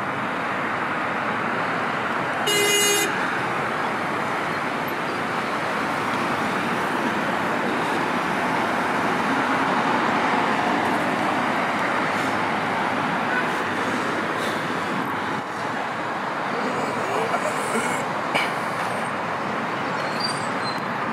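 Steady road traffic noise from cars passing on a busy city street, with one short car horn toot about two and a half seconds in.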